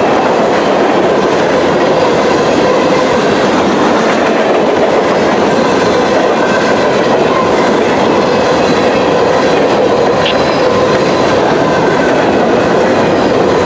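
Empty grain cars of a freight train rolling past at track speed: a steady, loud rumble and rattle of steel wheels on the rail, with clickety-clack from the rail joints.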